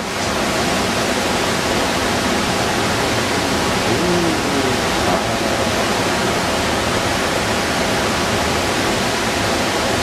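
A large waterfall's steady rush of falling water, a constant even noise without pause.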